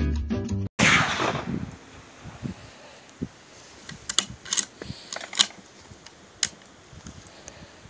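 Background music cuts off abruptly; a loud rushing burst follows and fades within about half a second. Then come a string of sharp clicks and knocks from a rifle being handled on a shooting bench.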